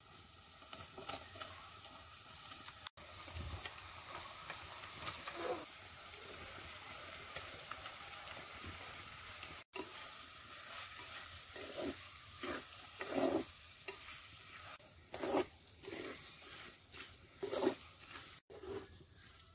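Sliced onions, then tomatoes and green chillies, sizzling in a clay pot while a metal ladle stirs and scrapes against the pot. The sizzle is steady. From about halfway the scraping comes in a series of short strokes.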